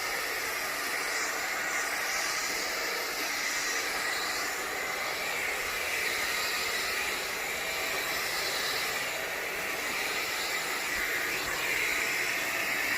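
Hoover ONEPWR FloorMate Jet cordless wet-dry hard floor cleaner running steadily, its suction motor and brush roll giving a high-pitched rushing noise that swells and eases now and then as it is pushed over the tile on dry passes, drawing up the leftover cleaning liquid.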